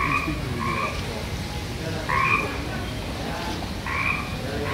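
Frogs croaking: a short call in two pitches, repeated about five times at uneven intervals, over a low steady background hum.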